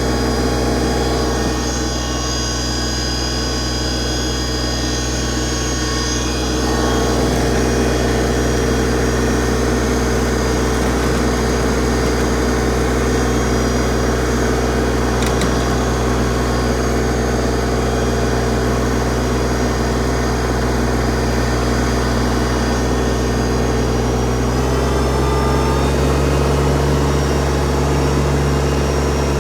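LS MT125 compact diesel tractor engine running steadily under load as it drives off carrying a heavy lifted load. The engine gets a little louder about six seconds in, and its note rises slightly near the end.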